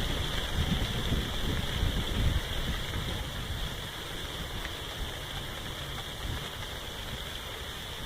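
Wind blowing through tree leaves, a steady rain-like rustle, with gusts buffeting the microphone as low rumbles that ease off after about two and a half seconds.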